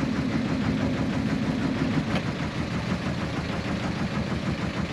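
Fishing boat's engine idling with a steady, evenly pulsing low rumble.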